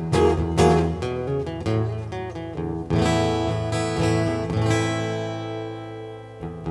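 Acoustic guitar strumming chords as an instrumental song intro. About three seconds in, a chord is left ringing and slowly fades before the strumming picks up again.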